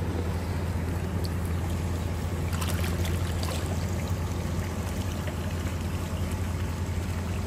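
Water splashing and gurgling as a crowd of fish churns the lake surface, with a steady low hum underneath.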